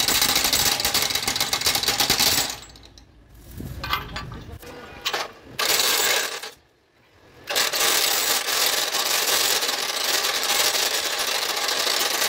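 Heavy impact wrench hammering on an excavator track shoe bolt nut, a fast metallic rattle. It runs for about two and a half seconds, comes in a few short bursts, stops for about a second, then runs steadily through the last four seconds or so.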